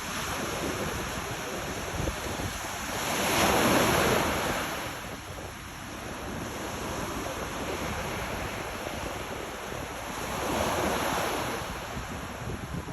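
Sea waves washing ashore, surging louder twice, about three to four seconds in and again near eleven seconds, with wind buffeting the microphone.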